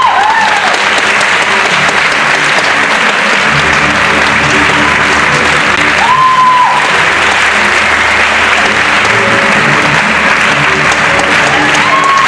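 Audience applauding steadily over ballet music that plays on beneath, with a short high held tone about halfway through.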